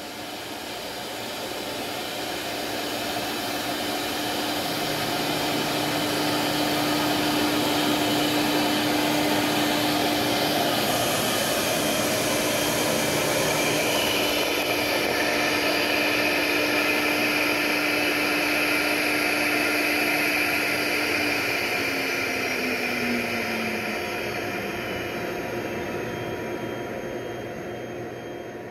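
CNC router spindle and dust-collection suction running steadily while the router cuts grid lines into the spoil board. A low hum in the noise slides lower in pitch about three quarters of the way through.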